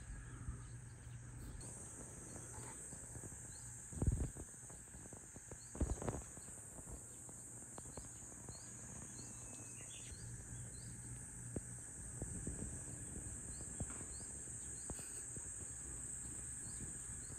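Steady high-pitched drone of insects outdoors, with short bird chirps repeating now and then and a brief whistle about ten seconds in. Two soft low thumps about four and six seconds in.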